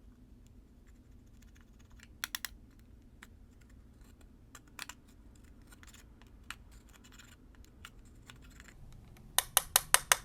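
Slime being worked by hand, giving crisp popping clicks as trapped air bursts. There are scattered single clicks, a quick run of three about two seconds in, and a loud run of about six clicks near the end.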